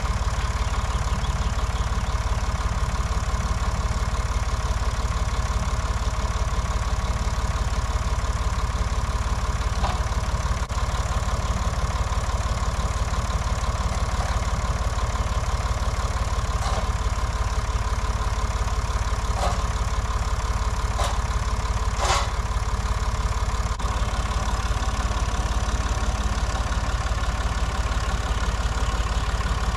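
Tractor engine idling steadily, with half a dozen short knocks in the middle of the stretch, the strongest about 22 seconds in.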